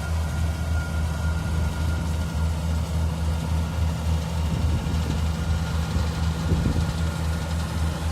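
Daedong DSC 62G half-feed combine harvester running steadily, a low engine drone with a faint high whine above it.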